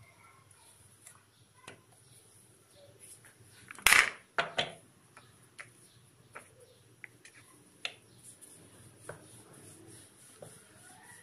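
Hand handling of kachori dough and a flour plate on a kitchen counter: scattered light taps and clicks, with a loud clatter about four seconds in and a second one soon after.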